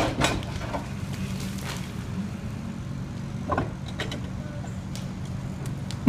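Heavy excavator's diesel engine running steadily on the bridge deck, with a few sharp knocks of steel on concrete as it breaks up the overpass. At the very end a loud crash begins as the span starts to give way.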